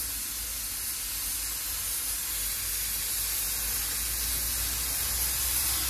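Pressure cooker venting steam through its open vent pipe with the whistle weight taken off: a steady hiss that grows slightly louder, as the pressure is let out before the lid is opened.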